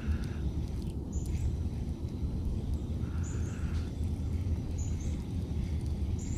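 A bird calling with short high chirps, repeated about every one and a half to two seconds, over a steady low rumble.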